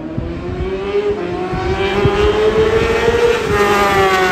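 Racing superbike engine at full throttle passing close by: the engine note climbs steadily for about three seconds, is loudest as the bike goes by, then drops in pitch near the end as it pulls away.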